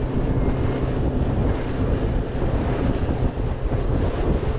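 Heavy wind buffeting the microphone over the steady drone of the boat's engine as it runs through choppy water.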